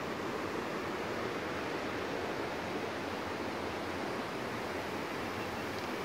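Steady rush of stream water pouring over rocks at a small waterfall.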